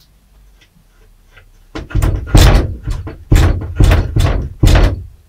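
A door banging and rattling in its frame, about six loud knocks over three seconds, as a cat pushes and pries at it to get through.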